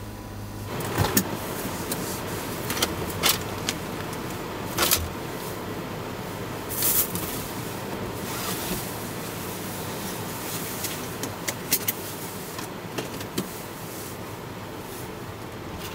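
Scattered clicks, knocks and rattles from the driver handling things in a small truck's cabin, one longer rustle among them, over a steady background hum. A low hum drops out about a second in.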